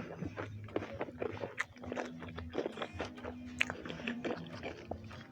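Close-up eating sounds: a person biting and chewing food, with irregular wet smacks and crunchy clicks.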